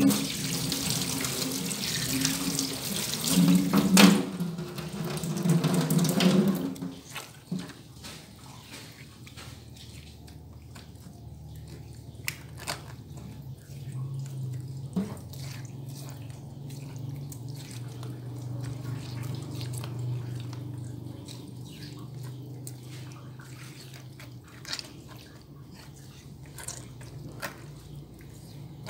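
Tap water running into a stainless-steel sink, with a knock about four seconds in, stopping about seven seconds in. Then soft squishing and light clicks as hands rub whole catfish in a wet ground spice paste on a mortar plate, over a low steady hum.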